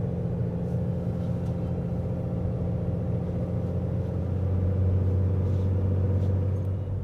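Steady low drone of a vehicle's engine and road noise heard from inside the cab while driving, swelling a little past the middle.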